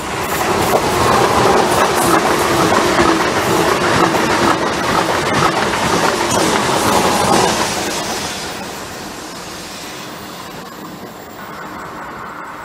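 Renfe long-distance passenger train passing at speed close by, its wheels clattering over the rails. The noise falls away about eight seconds in.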